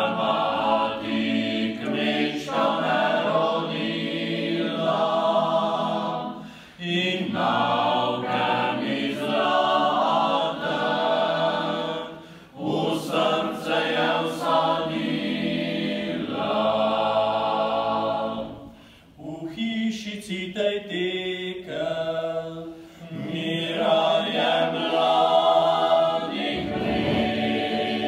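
Small men's choir singing a cappella, in phrases of several seconds with short pauses between them.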